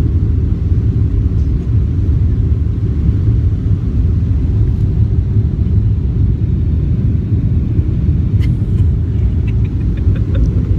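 Steady low rumble of an airliner's passenger cabin, with no change in level. A few faint light clicks come near the end.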